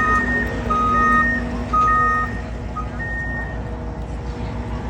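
Electronic two-tone alarm beeping in alternating high and low notes, each about half a second long, stopping a little past halfway. A low, steady rumble runs underneath.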